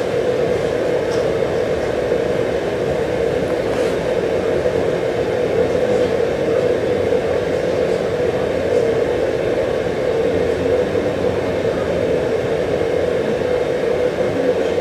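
Steady white-noise masking sound in a courtroom, an even rushing noise with no breaks, switched on during a bench conference so the sidebar talk between judge and counsel cannot be heard.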